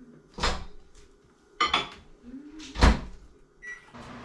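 Kitchen clatter: a few sharp knocks and clinks of dishes and a cupboard-type door being handled, the loudest about three seconds in, one with a brief metallic ring. Near the end a short high beep sounds and a steady hum starts.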